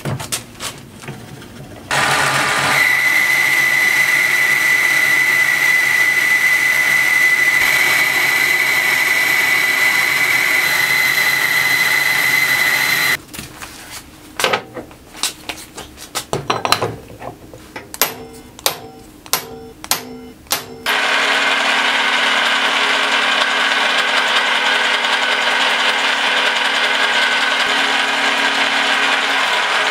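Steel being machined: a metal lathe runs and cuts steadily for about ten seconds with a high whine, then a string of sharp metal clicks and knocks, then a drill bores holes through a steel flange, running steadily with a low hum until the end.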